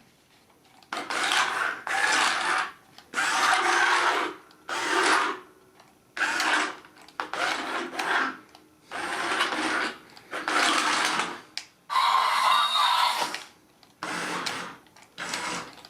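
The small electric drive motor and gears of a remote-control Bumblebee toy car whirring in about a dozen short bursts with brief pauses between them, as it is driven forward and back in spurts.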